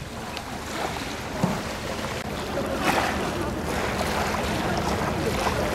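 Dragon boat paddles dipping and splashing in the water as the crew paddles slowly, with a few sharper splashes and a low rumble of wind on the microphone.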